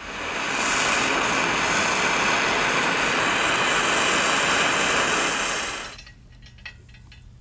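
Handheld gas torch burning with a steady hiss, its flame heating a seized exhaust manifold stud in a cast-iron cylinder head to free it by heat and quench. The flame shuts off about six seconds in.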